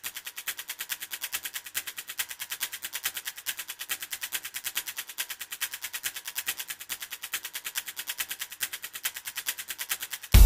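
Quiet, fast, perfectly even ticking, about eight ticks a second, from the intro of a music track. Loud music with drums cuts in suddenly at the very end.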